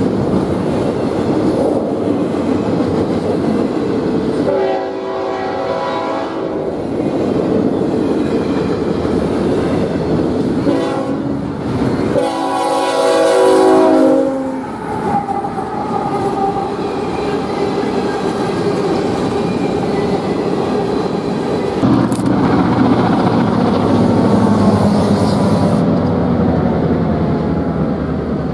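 Freight train rolling past close by, the steady rumble of its wheels on the rails. A locomotive air horn sounds a chord about five seconds in, again briefly near eleven seconds, then a longer, loud blast that drops in pitch around fourteen seconds in as the locomotive passes.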